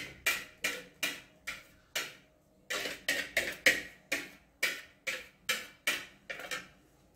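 A utensil scraping and knocking against the inside of a plastic mixing bowl in quick repeated strokes, about two to three a second, scraping the last of the egg-yolk and milk custard mixture out into a saucepan. The strokes stop near the end.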